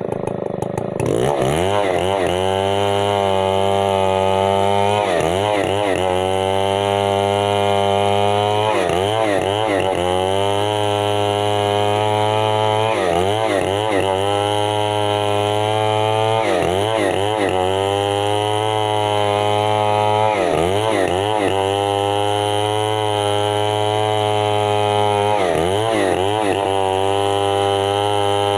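Stihl MS 070 chainsaw's large single-cylinder two-stroke engine revving up about a second in and held at high revs, its pitch dipping briefly and recovering about every four seconds.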